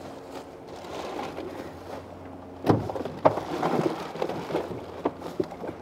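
A fish being put into a cooler of bagged ice: a sharp knock about two and a half seconds in, then more knocks and crackly rustling of ice and plastic. A faint steady hum lies under the opening seconds.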